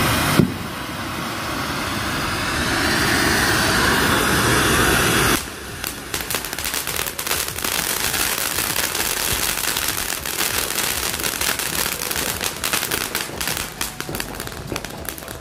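Ground fountain fireworks spraying sparks: a steady loud hiss for about five seconds, then, after an abrupt change, a dense rapid crackle of many small pops.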